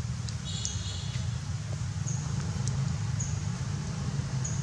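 Outdoor ambience: a steady low rumble, with a short high chirp repeating about once a second and a brief high-pitched call about half a second in.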